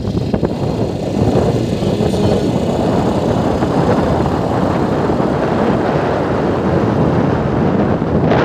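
Steady rushing noise of a vehicle on the move, with wind buffeting the microphone.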